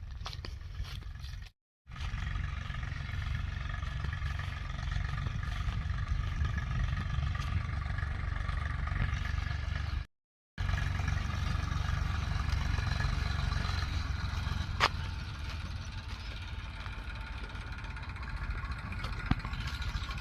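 An engine running steadily with a low rumble, broken twice by a sudden brief silence, with one sharp click about three quarters of the way through.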